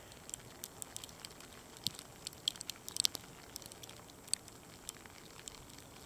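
Graupel and snow pellets striking close by, heard as scattered, irregular sharp ticks a few times a second over a faint steady hiss.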